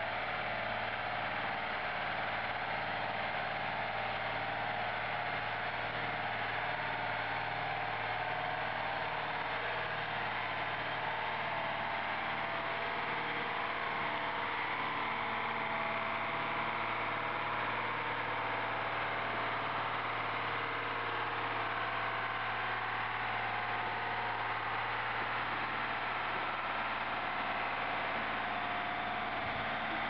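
Engine of a heavily loaded six-wheel logging truck running steadily: a low, even drone with a hiss over it.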